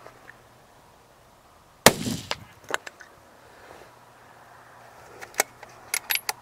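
A single gunshot from a coyote hunter's gun, one loud crack with a short echo about two seconds in, followed by a few sharp clicks and knocks and another cluster of clicks near the end.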